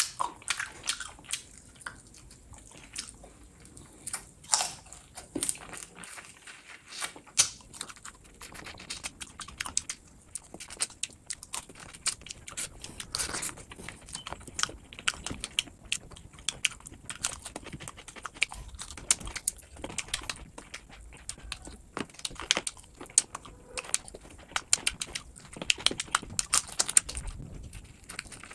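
A person chewing and biting into chicken legs in sauce, with many short, sharp smacking clicks of mouth and lips.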